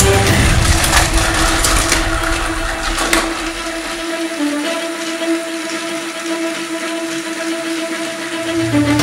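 Battery-powered TrackMaster toy train motors whirring, with plastic clattering and sharp knocks as the trains collide and derail during the first three seconds, then a steadier whir.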